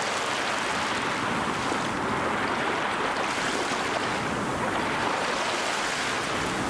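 Steady rushing and splashing of churning, frothy water.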